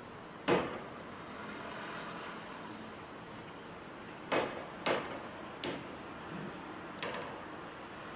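Bangs and clatters of waste being dumped into a caged tipper truck: five sharp knocks spread over several seconds, each with a short ring-out, the first the loudest.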